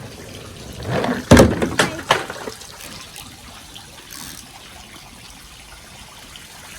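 Steady hiss of sprinkler water spraying, broken about a second in by a loud splash and a few quick knocks as a toy vehicle lands in the shallow water.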